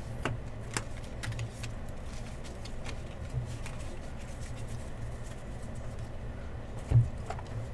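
Trading cards being handled: scattered soft clicks and slides as cards are flipped through, over a steady low hum, with one louder knock near the end.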